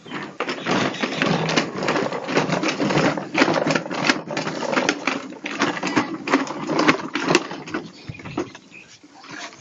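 Hard plastic wheels of a child's ride-on toy motorbike rattling and clattering as it rolls over rough, gritty ground. The clatter dies away near the end.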